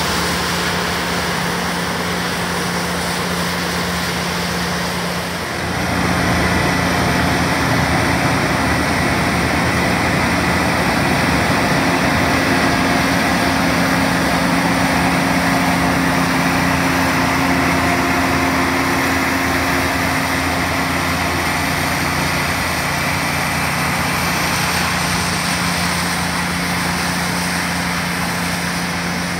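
New Holland CX8.85 combine harvester running under load while threshing barley: a steady drone of engine and threshing machinery. It grows a little louder and closer about six seconds in.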